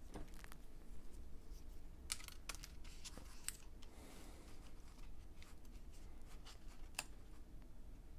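Faint, scattered light clicks and taps of small parts and tools being handled inside an opened MacBook Air, a few in quick succession about two to three seconds in and one more about seven seconds in, over a low steady hum.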